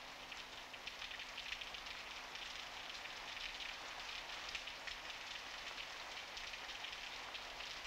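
Faint crackling hiss with a steady low hum underneath.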